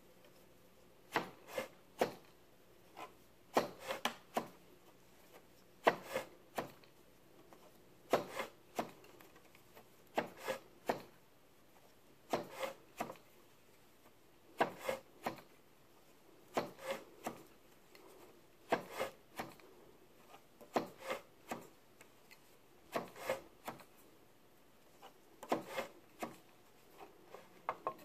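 Weaving on a wooden band loom: a knife-shaped beater taps the weft into place. The taps come as short clusters of two to four sharp knocks, about every two seconds.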